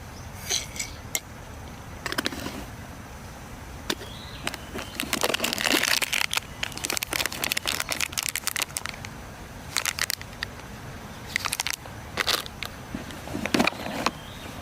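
Handling noise: irregular clicks and taps with a crinkling rustle, busiest about five to nine seconds in.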